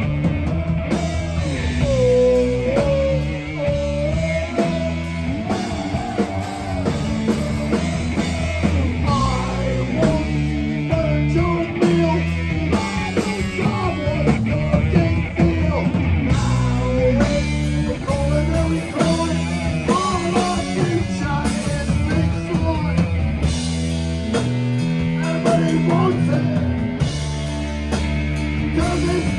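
Live heavy rock band playing loud and steady, with guitars, bass and a drum kit, and a singer's voice over the top.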